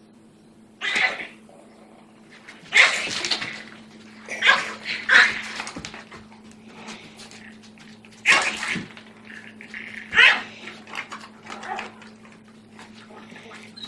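Small puppy barking in about six short, sharp, high-pitched yaps, guarding its food bowl against a bigger dog.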